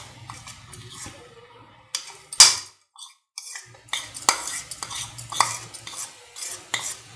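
Spatula scraping and tapping mashed potato off a plate into a nonstick kadai: a run of clinks and scrapes of utensil on plate and pan, the loudest a sharp knock about two and a half seconds in.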